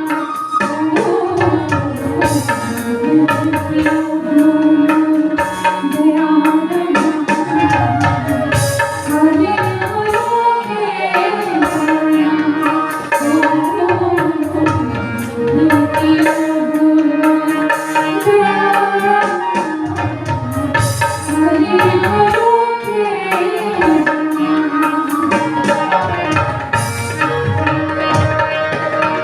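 Himachali Pahari nati folk music: a bending melody line over a steady hand-drum rhythm.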